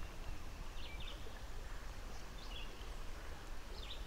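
Small birds chirping briefly, about three short calls, over a steady low rumble.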